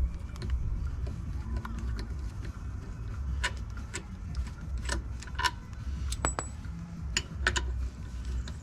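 Metal tools or parts being handled, giving a series of sharp metallic clinks and knocks, about seven in the second half, over a steady low rumble.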